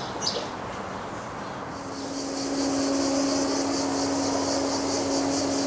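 Cicadas singing in a pulsing high chorus that starts about two seconds in, over a steady low hum. Before that, a couple of short high bird chirps sound against a light hiss.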